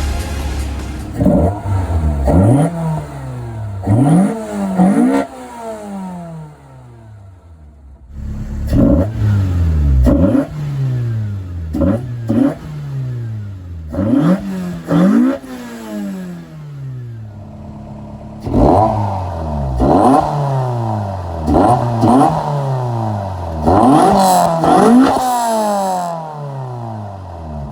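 Toyota 4A-GE 20-valve Blacktop four-cylinder engine being blipped over and over: each rev climbs sharply, then the pitch falls away as it drops back toward idle. The revs come in quick runs, with a short quieter lull after about six seconds.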